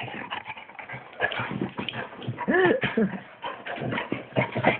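A dog whimpering in several short whines that rise and fall in pitch, the clearest a little past the middle.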